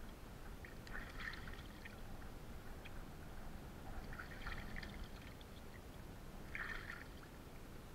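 Faint splashing and dripping of water as a raw bonito fillet is dipped, rinsed and lifted in shallow water, in a few short bursts.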